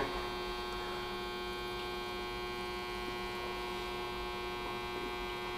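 Steady electrical mains hum, an even buzz with many overtones, holding at one level throughout.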